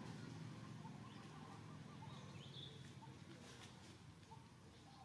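Faint outdoor forest ambience with a few short, distant bird chirps, two brighter ones about halfway through, over a low steady background hum.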